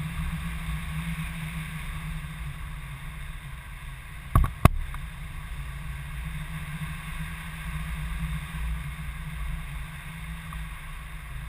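Steady low rumble of wind buffeting the microphone in tandem paragliding flight, with two sharp knocks close together about four and a half seconds in.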